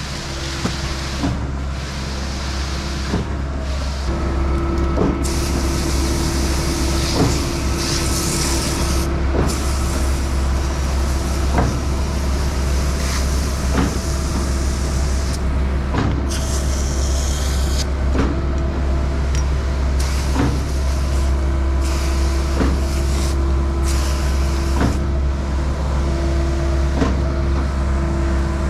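Skid-steer engine running steadily while driving a Mud Demon concrete pump, which knocks sharply about every two seconds as it strokes and shifts, with intermittent hissing over the top.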